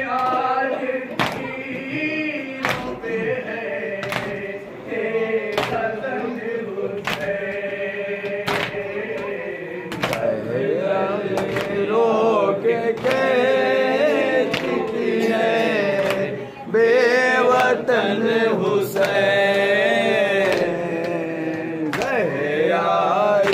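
Men chanting a Shia noha (Muharram lament) in chorus, with a lead voice on a microphone, over rhythmic chest-beating (matam): a sharp slap about every second and a half.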